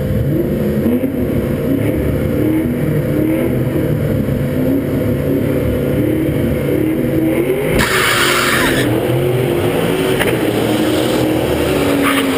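Drag-racing Mustang engines at the starting line, running loudly with the revs rising and falling. A brief loud hiss comes about eight seconds in, as the white car in the far lane launches down the strip.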